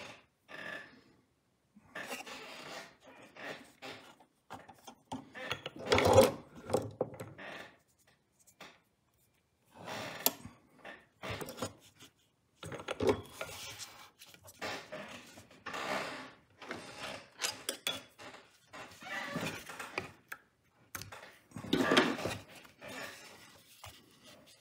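Hand-cranked Chinese leather shoe patcher sewing leather: the needle and shuttle mechanism runs in irregular spurts of scraping, rubbing noise with brief breaks between them.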